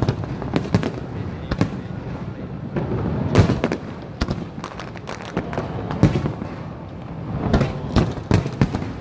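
Aerial firework shells bursting overhead: an irregular run of sharp bangs and crackles, several a second at times, over a low rumble, with the loudest bangs about three and a half and six seconds in.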